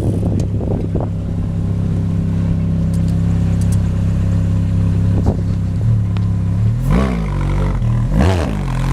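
Motorcycle engine running steadily while riding, with two brief rises and falls in pitch near the end.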